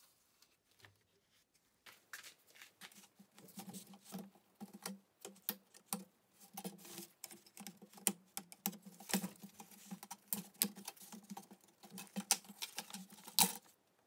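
Screwdriver working on a smoke detector's plastic base and parts: irregular small clicks, taps and scraping that begin about two seconds in, with the sharpest click near the end.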